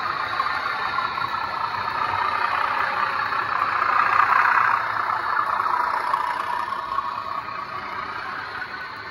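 Model Class 37 diesel locomotive's DCC sound decoder playing an English Electric diesel engine sound through its small onboard speaker as it runs past with a train of open wagons. It is loudest about four seconds in as the locomotive passes closest, then fades.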